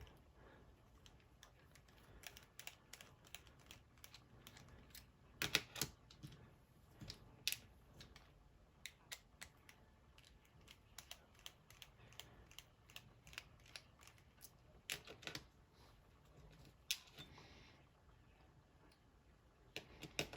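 Faint, irregular small metal clicks and taps as the cam is worked off the back of an Assa Desmo cam lock.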